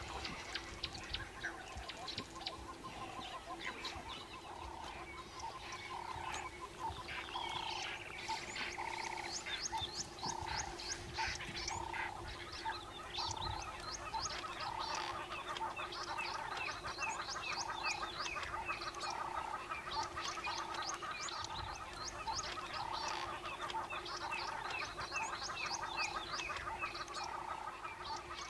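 Wild bush chorus of birds calling. One call repeats evenly about once every three-quarters of a second, with many short high chirps from other birds over it and a steady low hum underneath.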